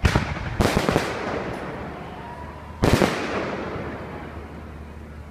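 Fireworks shells bursting close by: three loud bangs, the first two about half a second apart and the third about two seconds later, each rumbling away over a second or two.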